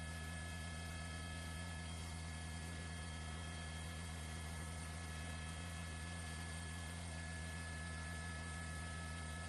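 Steady electrical hum with several faint, thin high whining tones on an open broadcast audio line, with no change throughout.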